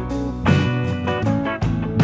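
Background music led by guitar, with plucked notes in a steady rhythm.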